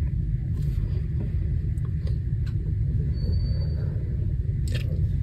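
Steady low rumble with a few faint clicks, and a short, high, thin tone about three seconds in.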